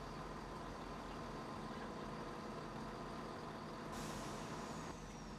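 Diesel train engine idling with a steady hum. A short hiss of released air comes about four seconds in.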